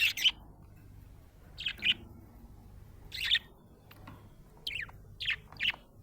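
Budgerigar chirping: short, sharp chirps in pairs and small clusters, roughly every second and a half, with a quick run of three near the end.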